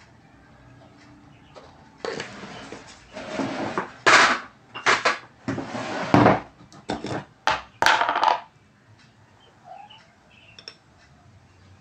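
Crinkling of a plastic instant-coffee pouch being handled, in a run of loud, uneven bursts that starts about two seconds in and stops a few seconds before the end, followed by a few light clicks.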